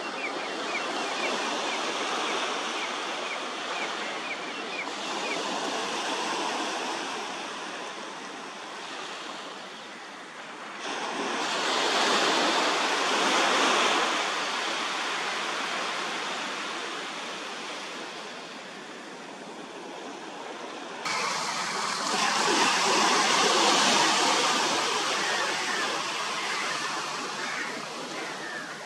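Sea surf: small waves breaking and washing up onto a sandy beach, the noise swelling and easing in long surges. The level jumps abruptly about 21 seconds in.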